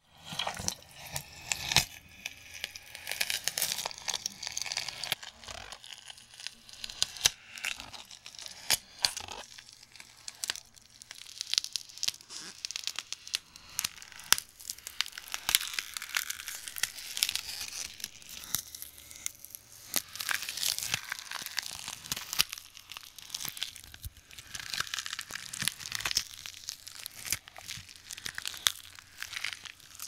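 Monster sound effect made for the Gryphon: a dense, irregular run of crackling, crunching and tearing noises, with no voice or roar in it.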